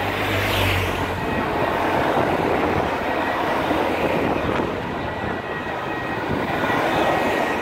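Police motorcycle passing close, its engine note heard in the first second, followed by a steady rush of passing-vehicle noise that swells again near the end as an ambulance draws near.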